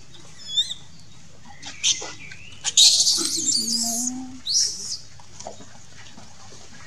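Baby macaque crying with high-pitched squeals: a few short ones, then a long, loud, shrill scream about three seconds in lasting about a second, and one more short squeal soon after.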